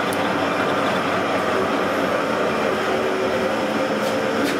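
Milling machine running steadily while cutting gear teeth, a constant loud mechanical drone with faint steady tones in it. A couple of light ticks near the end.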